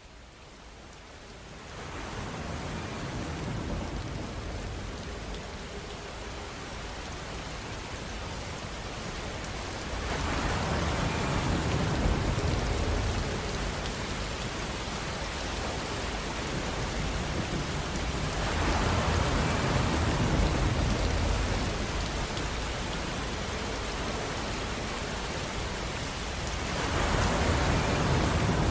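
Steady outdoor rushing noise with a low rumble that fades in over the first two seconds, then swells louder about every eight to nine seconds.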